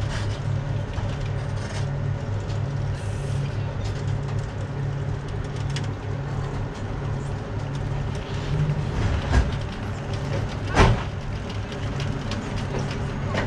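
Steady low electrical hum of a standing passenger train's coaches, with a dull thump about nine seconds in and a sharp knock near eleven seconds.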